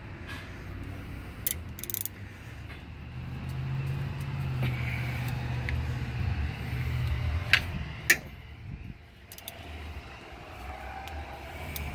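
A few sharp metallic clicks from a ratchet and 14 mm socket working the lower brake caliper bolt loose, over a low rumble that swells in the middle.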